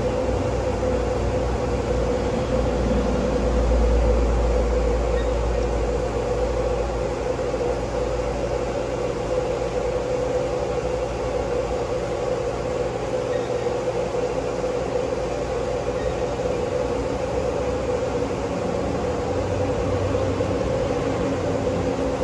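CNC vertical machining center running with its spindle turning a 4 mm end mill at 500 rpm, a steady machine hum, while the head is jogged down in Z by handwheel to touch off on the workpiece. A louder low rumble comes in a couple of seconds in and eases off a few seconds later.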